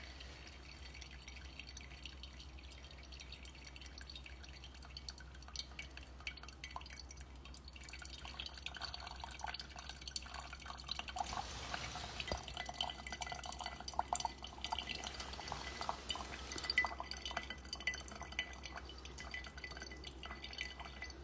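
Brewing coffee dripping and trickling faintly, a scatter of small drips and patters that grows busier about halfway through.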